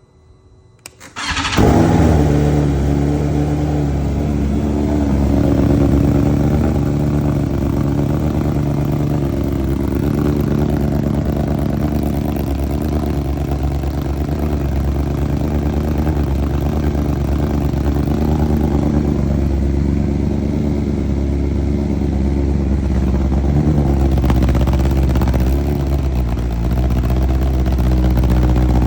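BMW S1000RR inline-four, on Arrow headers with the stock silencer, started about a second in: a brief crank, then it catches and settles into a steady idle with small swells in revs.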